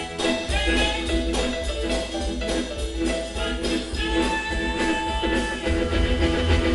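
Live rockabilly and rhythm-and-blues band playing an instrumental stretch: upright bass, electric guitar, drum kit and saxophone, with no vocals.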